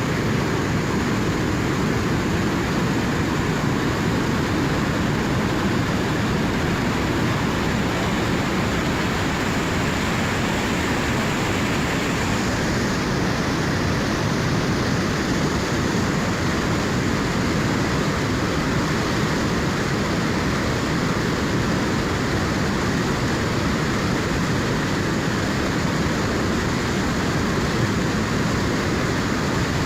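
River in high flow rushing steadily, a continuous deep wash of turbulent water.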